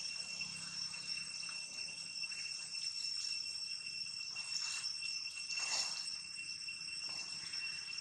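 Steady high-pitched insect drone, two shrill tones held level throughout, with a couple of brief louder rustling sounds about five and six seconds in.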